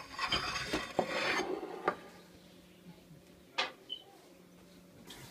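Kitchen handling sounds: about a second and a half of rubbing and scraping, then a few sharp clicks of kitchenware on the counter.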